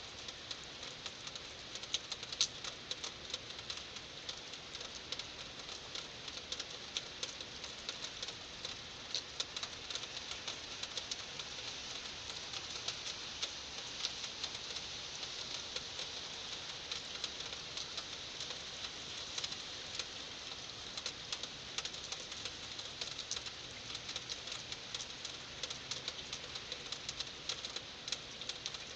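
Heavy rain falling steadily, with a constant hiss and many sharp drops pattering and spattering on hard surfaces.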